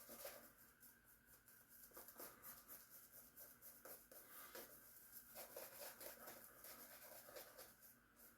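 Faint, soft scratchy strokes of a shaving brush working soap into a lather on the face.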